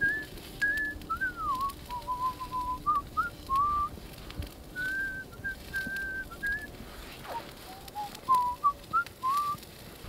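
A person whistling a slow tune: single clear notes, some held for a second or more, with slides between pitches, in three phrases with short breaks between them.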